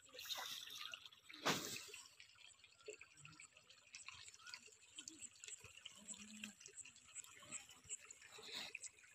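Faint wet ticking and rustling of a fine nylon fishing net being untangled by hand as small fish are picked out of it, with one louder crackle about a second and a half in.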